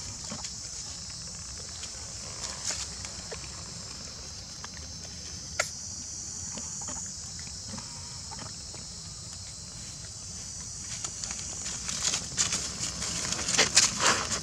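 Dry leaf litter crackling and rustling as baby macaques and their mother shift about on the ground, with scattered clicks at first and a busier, louder run of crackles in the last few seconds, over a steady high hiss.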